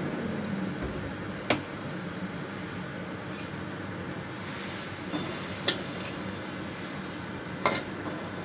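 A metal ladle stirring broth in a carbon-steel wok, clinking sharply against the pan three times, over a steady background hum.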